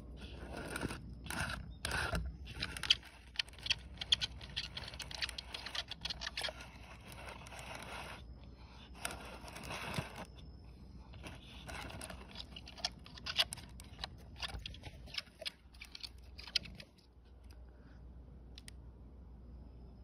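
Scraping, crackling and sharp clicks against a clear plastic container, in an irregular run that dies away about three seconds before the end.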